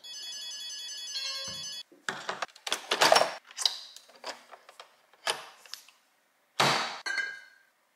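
Background music for about two seconds, then plastic clicks and knocks of a capsule coffee machine being handled, ending with its top lever snapped shut in one sharp click with a brief ring near the end.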